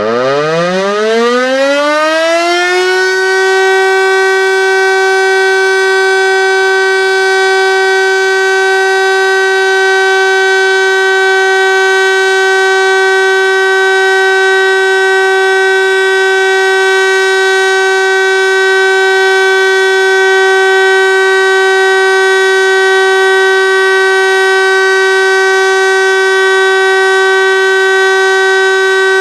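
Landert MSL-3 motor-driven civil defence siren starting up: its pitch climbs for about three seconds, then it holds a loud, steady, unwavering tone.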